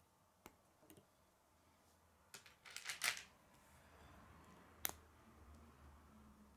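K'nex plastic rods and connectors clicking as they are snapped together by hand: two light clicks in the first second, a quick cluster of louder clicks about three seconds in, and one sharp snap near five seconds.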